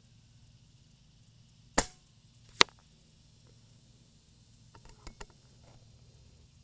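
FX Royale 500 .25 regulated PCP air rifle firing once: a sharp report about two seconds in, followed under a second later by a louder sharp ring as the pellet strikes the disc target. Near the end come a few quieter metallic clicks as the side lever is cycled to load the next pellet.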